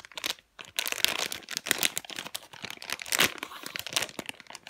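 Clear plastic packaging bag crinkling in the hands as the squishy toy inside it is handled: a dense run of irregular crackles with a brief lull about half a second in.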